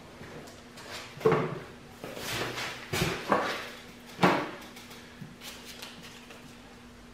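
Handling noises: about five short knocks and scrapes in the first four and a half seconds as the camera and things on the workbench are moved, over a faint steady hum.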